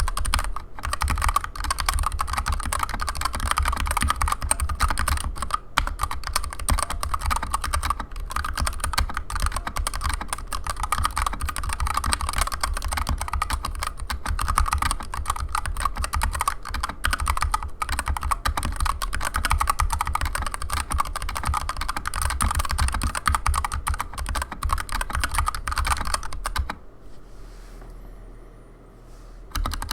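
Fast continuous typing on a Skyloong GK61X 60% mechanical keyboard with stock Zeal Turquoise Tealio linear switches, dense keystroke clacks, pausing for about three seconds near the end.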